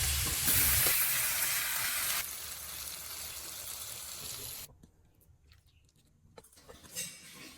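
A steady rushing hiss. It drops in level about two seconds in and cuts off suddenly near five seconds, leaving a few faint clicks.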